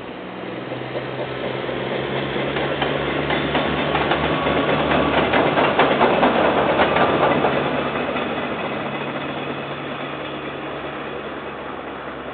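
A KiwiRail diesel train passing by. The locomotive's engine drone builds up, peaks about halfway with a rapid clatter of wheels on the rails, and then fades away.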